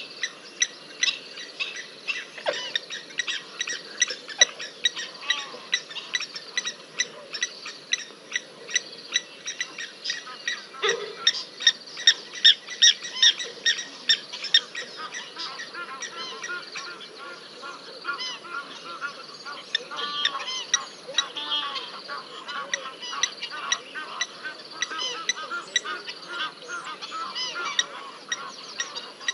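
A long run of short, high-pitched animal calls repeated about two to three times a second, loudest a little before the middle, then looser, quieter calls that rise and fall in pitch.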